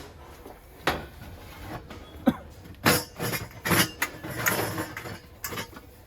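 Brass kitchen vessels being handled, knocking and clinking against each other and the surface about six times at irregular intervals, some hits ringing briefly.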